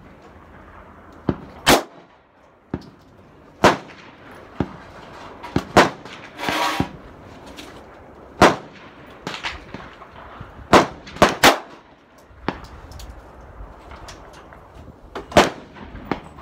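Gunshots on a shooting range: about a dozen sharp cracks at irregular intervals, some close together in twos and threes, with a brief hiss near the middle.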